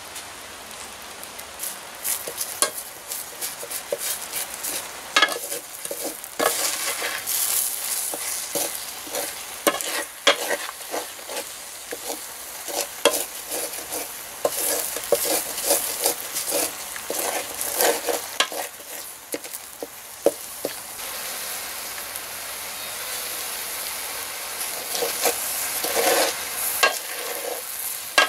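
Beaten egg and shredded cabbage sizzling in hot oil in a metal pan, with frequent scraping and knocking strokes of a wooden spatula stirring and breaking up the egg. The stirring strokes come thickest from about five seconds in.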